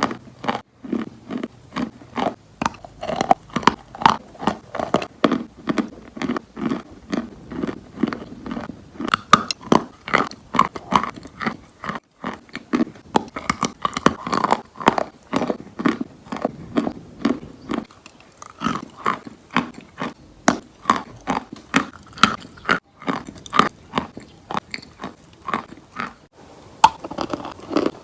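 Close-miked eating of crunchy fried chicken: bites followed by rapid, crackly crunching chews of the breaded crust, a few crunches a second with brief pauses.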